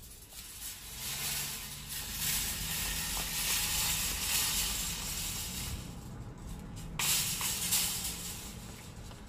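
Metal shopping cart rolling across parking-lot asphalt, its wheels rattling steadily, then a couple of clanks about seven seconds in as it is pushed into the cart corral.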